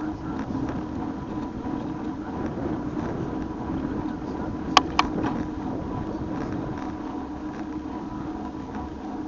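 Steady running noise of a bike being ridden along a road, with two sharp clicks about a quarter second apart near the middle.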